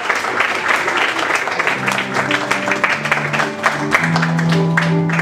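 Audience applauding, with the clapping thinning out as music with long held low notes comes in about two seconds in.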